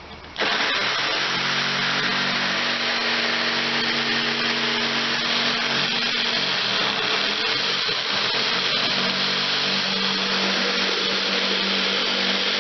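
Electric power tool starting about half a second in and running steadily as it trims the plastic of a kayak hull around a hatch opening.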